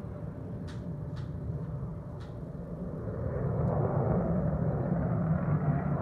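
F-16 fighter jet flying past under a low cloud ceiling: a low jet rumble that swells louder about three seconds in as the jet draws nearer.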